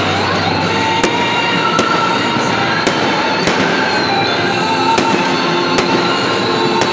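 Fireworks going off in sharp cracks, about seven at uneven intervals, over a loud steady din with music.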